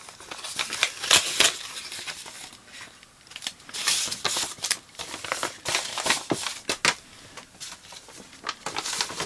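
Paper rustling and crinkling as a greeting card is taken out of its wrapping and handled, in irregular spells with a few sharp clicks, loudest about four seconds in.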